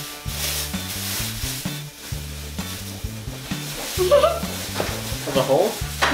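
Thin plastic bags crinkling and rustling as they are handled, over background music with a steady stepping bass line. A short voice sound comes about four seconds in and again near the end.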